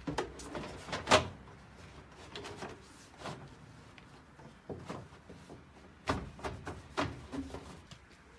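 Black boot mat being laid into the boot of a Dacia 1300: a string of irregular rustles and thumps as it is flapped down and pressed against the boot floor by hand, the loudest thump a little over a second in.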